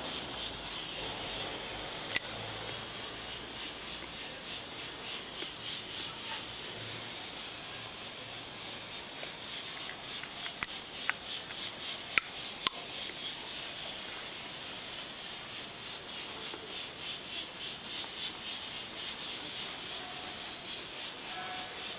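Valve being lapped into its seat on a cylinder head by hand: a steady, rhythmic rubbing and grinding that pulses about twice a second. A few sharp clicks come in the middle.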